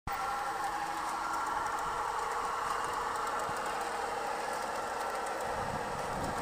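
Märklin gauge 1 model diesel locomotive running along garden track with a coach, giving a steady mechanical hum. Low wind rumble on the microphone comes in near the end.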